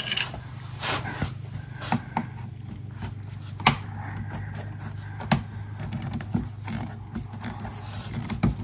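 Plastic push-pin clips being prised out of a car's underbody tray with a hand tool: scattered clicks and snaps, the sharpest about three and a half seconds in and again just past five seconds, over a steady low hum.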